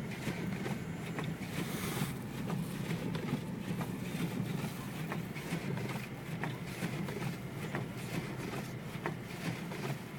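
Steady road and engine drone heard from inside a car's cabin while it drives along a snowy highway, with scattered faint ticks. A short hissing swell comes about two seconds in.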